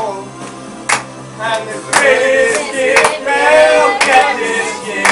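Voices singing a tune with a sharp clap or beat about once a second, the singing getting louder about two seconds in.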